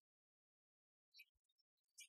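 Near silence, with a few faint, scattered clicks in the second half.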